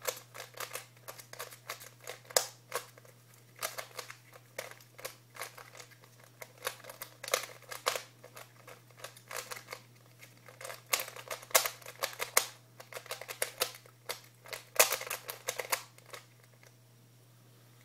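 Rubik's Cube being turned by hand: rapid bursts of plastic clicking and clacking as the layers are twisted, in quick runs separated by short pauses, stopping shortly before the end.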